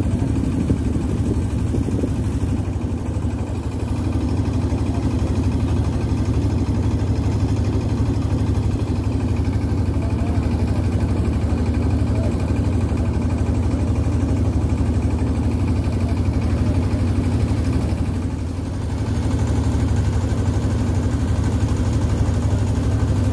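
Engine of a wooden river passenger boat running steadily under way, a loud, even low drone.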